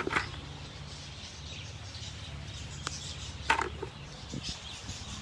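Quiet outdoor background with a low steady rumble and a few short, faint bird chirps.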